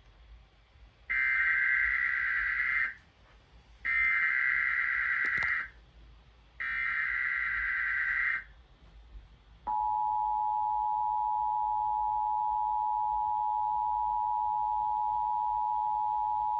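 Emergency Alert System test signal: three short bursts of buzzing digital SAME header data, each a little under two seconds with about a second between them. About ten seconds in, the steady two-tone EAS attention signal (853 and 960 Hz) starts.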